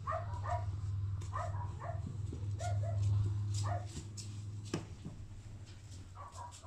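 Young puppies, about four and a half weeks old, giving short high yips and whimpers, often two in quick succession, with a few sharp clicks in between.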